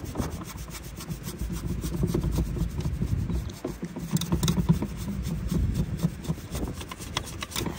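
A bristle brush scrubbing the textured plastic top of a MotorGuide Tour Pro trolling-motor foot pedal, in rapid back-and-forth scratchy strokes, cleaning off dirt with isopropyl alcohol.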